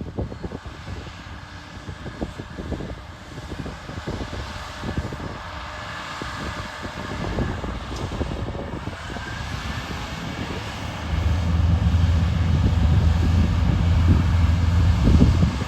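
Heavy diesel farm machinery running during a sweet corn harvest, a steady engine sound with scattered low thumps. About eleven seconds in it gets louder, with a strong low drone.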